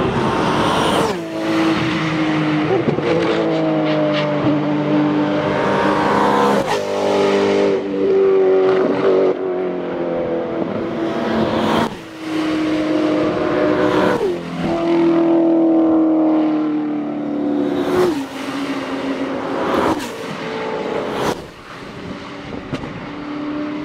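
Race cars passing one after another at full throttle, their high engine notes gliding in pitch. The note breaks off sharply and picks up again every few seconds as the cars change gear on the climb.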